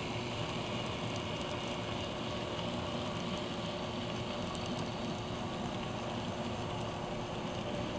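N scale model freight train rolling slowly past, a steady rumble of its cars' wheels on the track with a few faint clicks.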